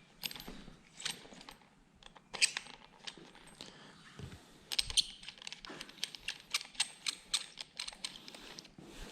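Irregular light clicks and metallic clinks of small hardware and hand tools being handled: bolts, clamps and handguard parts going onto a motorcycle handlebar.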